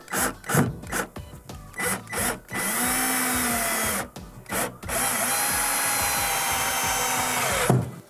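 Cordless drill driving a stud bolt through a steel microwave mounting plate into the wall: a few short trigger spurts, then two longer runs, the second about three seconds long, each with a steady whine that drops in pitch just before the motor stops.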